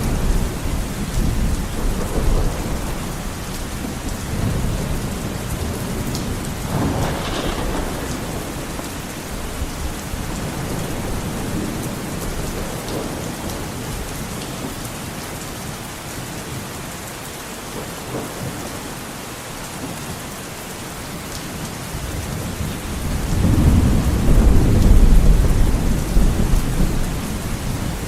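Heavy rain beating steadily on window glass, with wind. Thunder rumbles low in the background and swells to its loudest near the end.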